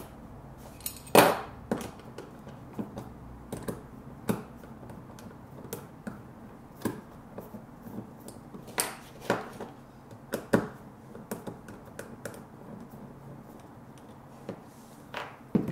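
Irregular light clicks and taps of a hand screwdriver working the terminal screws of a lamp receptacle (porcelain-style lamp holder), loosening the screws and fastening the wire ends under them. A few sharper knocks stand out, the loudest about a second in.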